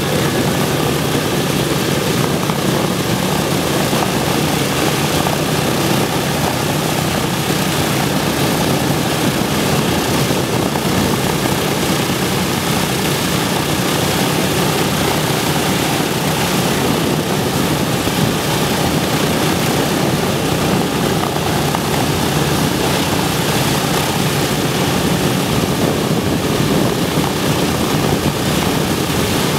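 Boeing B-17 Flying Fortress's Wright R-1820 Cyclone nine-cylinder radial engines idling steadily, with propellers turning.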